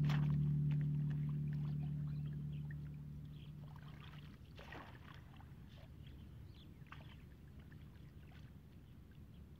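A steady low musical drone fades out over the first three seconds or so, leaving faint, irregular splashing and sloshing of shallow muddy water as hands work in it.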